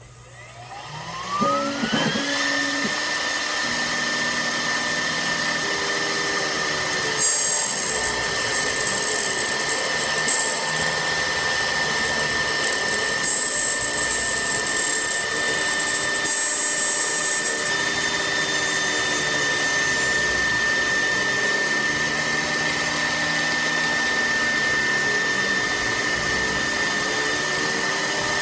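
CNC router spindle spinning up with a rising whine over the first couple of seconds, then holding a steady high whine while an end mill cuts 7075 aluminium plate. Lower motor tones glide up and down as the axes move, and a harsher cutting hiss comes and goes.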